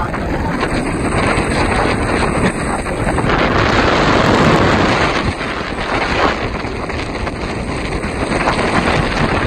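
Wind buffeting the microphone: a loud, steady rush that swells about four seconds in and then eases.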